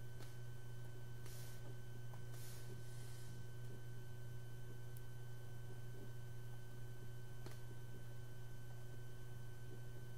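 A steady low electrical hum with a fainter high steady whine above it. A few soft swishes in the first three seconds and one faint click a little after seven seconds.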